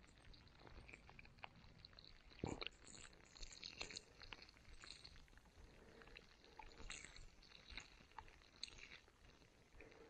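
Quiet snowy forest ambience, near silence broken by faint, irregular ticks and crackles, with one soft thump about two and a half seconds in.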